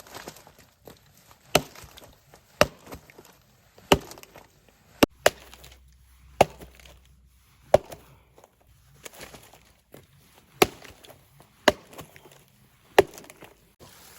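Chopping: about ten sharp strikes of a blade, spaced roughly a second apart.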